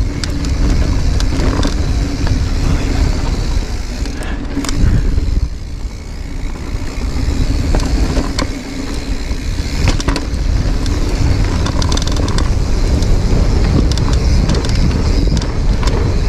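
A Giant Reign mountain bike running fast down a rough dirt trail: tyres rolling, and the frame and chain rattling and clattering over bumps, under a constant low wind rumble on the microphone.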